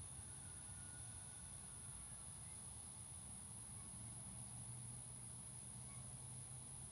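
Faint steady outdoor ambience: a continuous high-pitched insect drone over a low hum.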